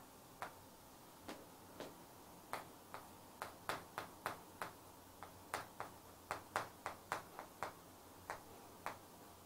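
Chalk tapping and scratching on a chalkboard as an equation is written: a faint run of short, irregular clicks, about two or three a second.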